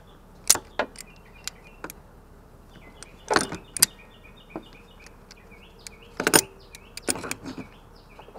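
Sharp clicks and knocks of hand tools and rubber coolant hoses being handled against metal parts around a car's inverter water pump, a handful of separate strikes with the loudest clusters about a third and three-quarters of the way in.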